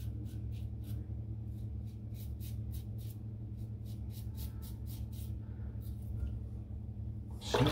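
Stainless steel safety razor strokes rasping through lathered stubble, short scrapes coming about three to four a second with a brief pause. A louder noise starts right at the end.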